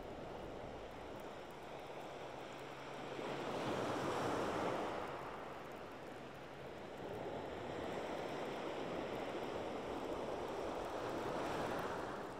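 Small sea waves breaking and washing up a shingle beach, swelling twice, about four seconds in and again later on.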